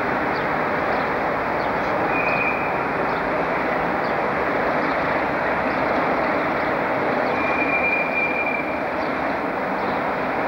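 Diesel locomotive running slowly over pointwork, a steady rumble and rattle, with two brief high-pitched wheel squeals: one about two seconds in and a longer one around eight seconds.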